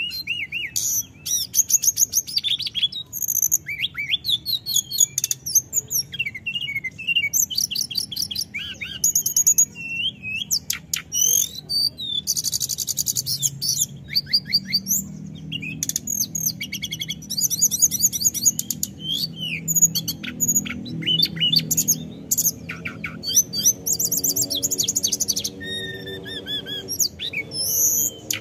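Hill blue flycatcher singing its rolling song: fast, high trills and warbled phrases run almost without a break.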